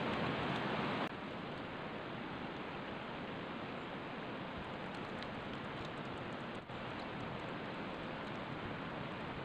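Steady, even outdoor hiss by a river with no distinct events, a little louder for the first second and dipping briefly about two-thirds of the way through.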